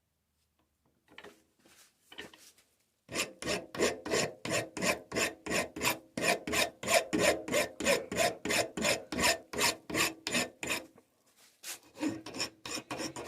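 Hand file rasping back and forth across the end of a 6BA bolt held in a tapped hex-bar jig, filing it down to length. A few light strokes come first, then steady strokes at about three a second for around eight seconds, a short pause, and a few more strokes near the end.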